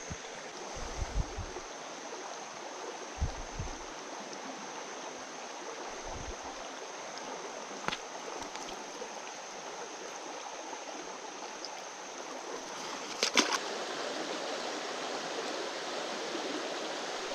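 Shallow, rocky mountain creek running, a steady rush of water over stones. A few soft low bumps come in the first seconds, and a short sharp clatter about thirteen seconds in.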